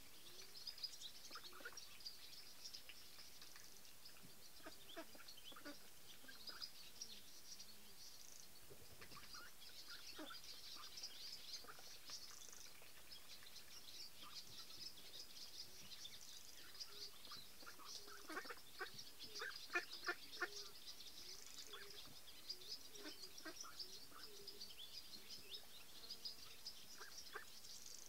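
Faint chirping of small birds throughout, with soft low calls mixed in and a cluster of louder short clicks about two-thirds of the way through.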